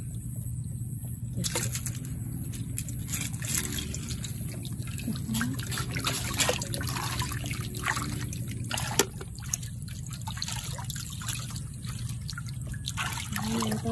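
Shallow rice-field water splashing and trickling in small irregular splashes, as hands grope through it for freshwater clams.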